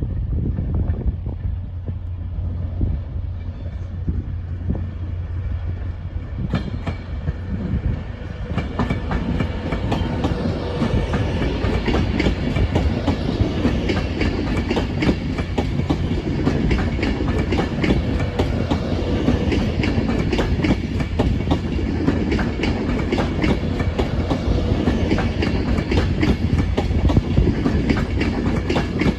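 Train running past on the track, with a low rumble and rapid clicking of wheels over the rails; it grows fuller and louder about seven seconds in.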